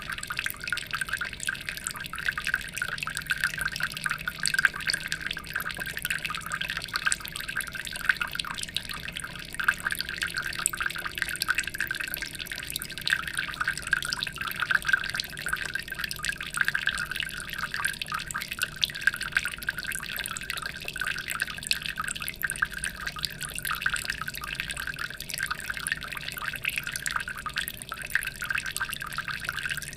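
Water trickling and dripping without a break: many small splashes close together, steady throughout.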